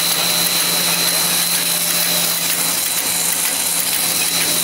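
Puffed corn snack extrusion line running: a steady, loud machine din with a constant high whine and a low hum.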